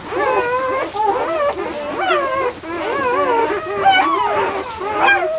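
A litter of newborn livestock guardian dog puppies crying together: many high, wavering whines and squeals overlapping, sounding like little wolves.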